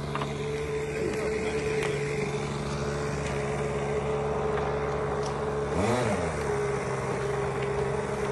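An engine running steadily, its pitch rising and falling once about six seconds in, as if briefly revved.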